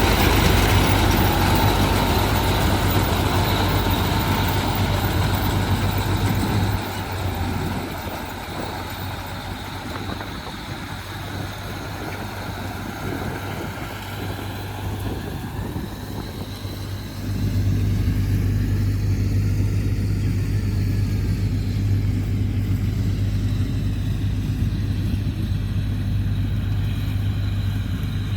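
Tractor engine running with a steady low hum, powering a mini combine harvester. It drops in loudness about seven seconds in and comes back full about ten seconds later.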